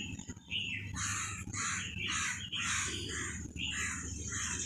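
Crows cawing in a rapid run of harsh calls, about two a second, starting about a second in, over a steady low background hum.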